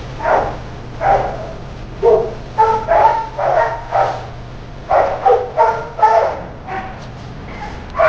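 Shelter dogs barking in their kennels: a dozen or so short barks at irregular intervals, about one every half second to second.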